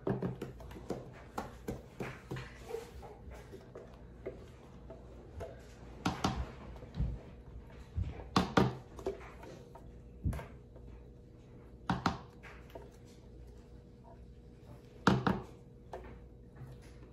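A silicone spatula scraping and knocking against the inside of a plastic Ninja blender jar while a thick blended mixture is scraped out, giving irregular soft taps and scrapes with a few louder knocks.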